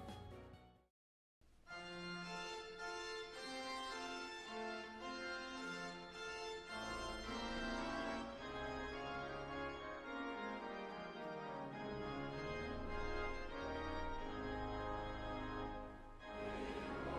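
Organ music playing sustained chords, fading out at the start and stopping briefly, then starting again about a second and a half in; a low bass part enters about seven seconds in.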